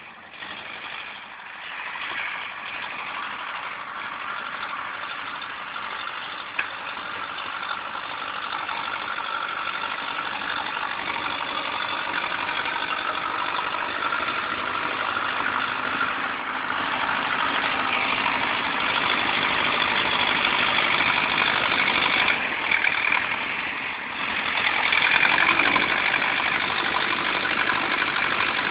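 Tractor's diesel engine running steadily at work, growing louder as it comes near.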